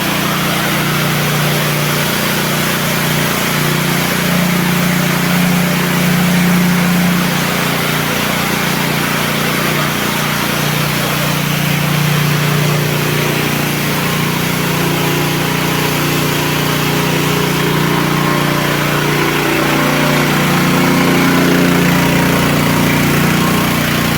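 Jet Mac professional high-pressure washer running steadily: a continuous low hum over an even hiss.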